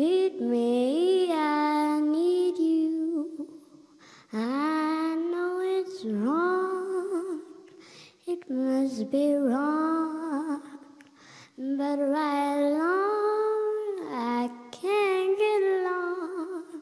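A young girl singing solo into a microphone: slow phrases of long held notes with vibrato, broken by short breaths.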